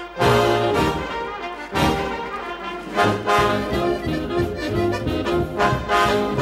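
Charanga brass band music: trumpets and trombones playing a lively tune, with a regular bass beat coming in about three seconds in.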